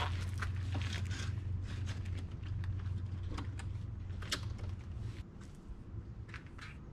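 A rooftop tent being handled: scattered clicks, ticks and rustles, the loudest about four seconds in, over a low steady hum that drops away about five seconds in.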